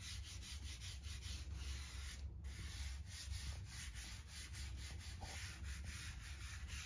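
A hand rubbing soft pastel into paper to blend the colour, in quick, evenly repeated scratchy strokes.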